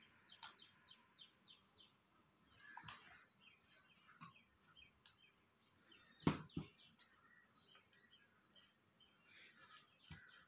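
Faint birds chirping, starting with a quick run of about six repeated falling notes and then scattered short chirps. Two sharp knocks come about six seconds in, the first the loudest sound, and another knock near the end.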